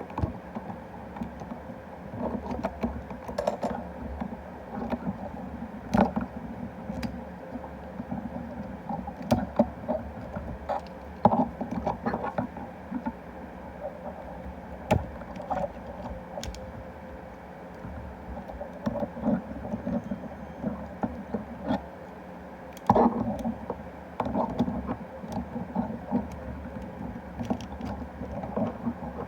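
Plastic transforming toy being handled: scattered clicks and knocks of plastic parts, with short rustles, over a steady background hiss.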